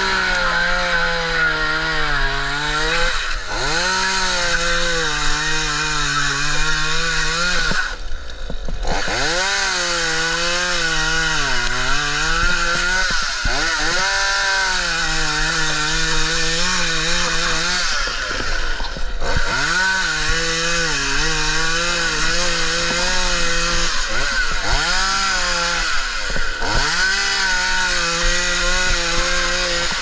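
Two-stroke gas chainsaw cutting through the fibrous frond bases of a Mexican fan palm. Its engine pitch sags and recovers as the chain bites, and the throttle drops back briefly several times between cuts.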